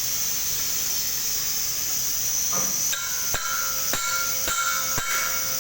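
A hammer tapping on metal cylinder-valve parts: four sharp ringing metallic strikes about half a second apart in the second half, over a steady high hiss.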